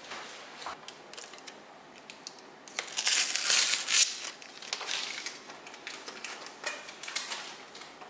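Crinkling and rustling handling noise with scattered clicks, loudest about three to four seconds in.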